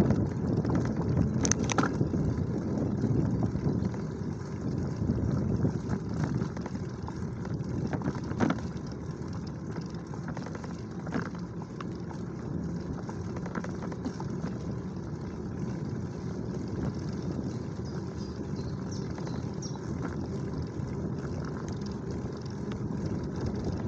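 Wind buffeting the microphone and tyres rolling on an asphalt cycle path while riding along, a steady low rumble that eases a little after the first few seconds. A few faint clicks or rattles come through, about a second and a half in and again near the middle.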